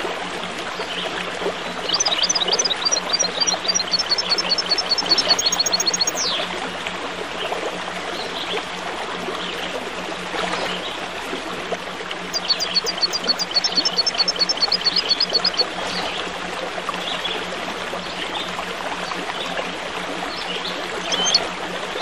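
Running water trickling steadily, with a small bird singing two runs of rapid repeated high chirps, each lasting about three to four seconds, and a few single calls between them.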